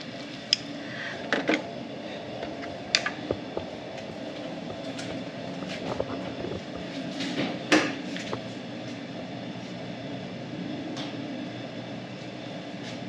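Bumper light wiring connectors and loose wires being handled and plugged together: scattered sharp clicks and taps, a few close together, the loudest about three seconds in and nearly eight seconds in, over a steady hum.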